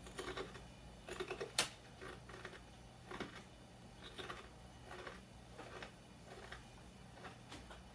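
Someone chewing Doritos tortilla chips, a run of short crisp crunches with a sharper crack about one and a half seconds in.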